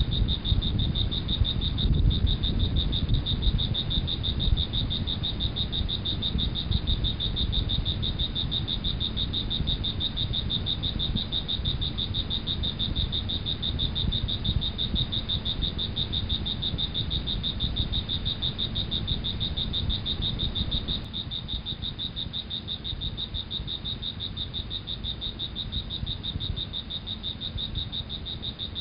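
A steady chorus of calling night creatures: a high, finely pulsing trill over a low rumble. It gets a little quieter in its last third.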